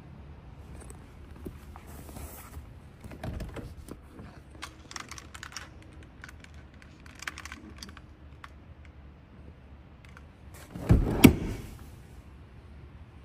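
Handling noise of someone moving about inside a car's cabin: scattered clicks, rustles and light knocks, with two heavy thumps in quick succession near the end.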